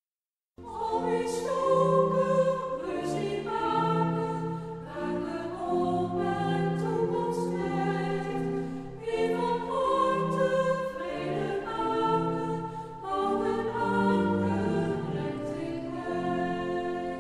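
A choir singing slow sustained chords in several parts, a sung response between spoken intercessions; it begins about half a second in.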